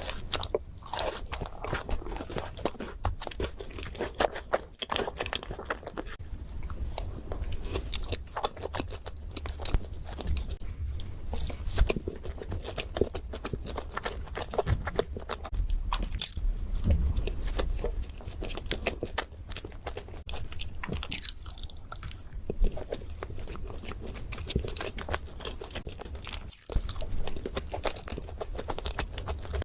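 Close-miked eating: crunchy bites and chewing of chocolate desserts, many crisp crackles and mouth sounds one after another.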